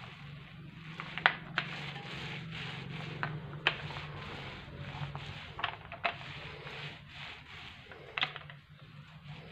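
Texture paint roller rolled back and forth over the cement-textured surface of a speaker box: a rough, rasping rub with scattered sharp clicks.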